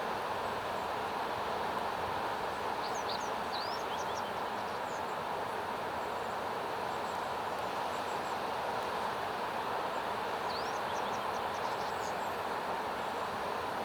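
Small wild birds giving thin, high chirping calls in two short clusters, about three seconds in and again about ten seconds in, over a loud, steady rushing noise.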